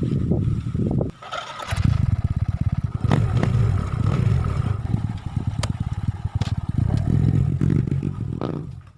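Motorcycle engine running with a rapid low pulsing; it breaks off for about half a second a second in, then runs steadily again until it fades just before the end.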